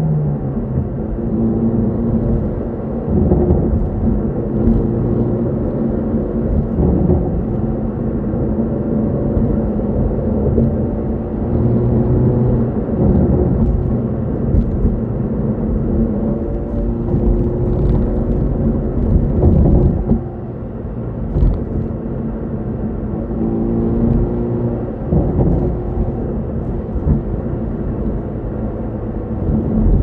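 Hyundai Veloster N's turbocharged 2.0-litre four-cylinder engine and exhaust running at high revs, heard from inside the cabin over road rumble. Its pitch climbs and drops back several times as the car pulls through the gears, and it eases off for a moment about two-thirds of the way through.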